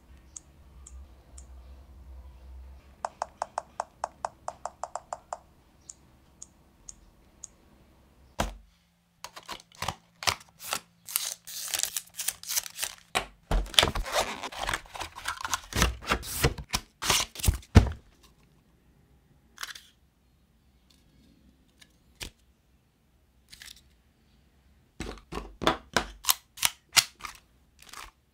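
Close-up handling sounds: a quick run of small, evenly spaced clicks, then a dense stretch of scraping, tapping and clicking as the black cardboard box of an Asus ROG Kunai 3 Gamepad is opened and its contents lifted out. Near the end come a few quick clicks of hard plastic as the gamepad itself is handled.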